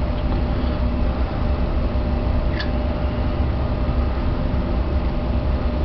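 A steady low mechanical hum and rumble, with one faint click about two and a half seconds in.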